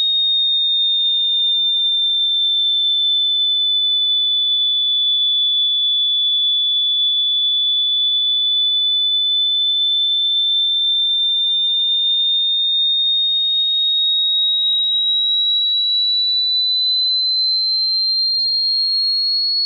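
A single high-pitched pure electronic tone, held loud and unbroken. Its pitch sags slightly, then climbs slowly through the second half.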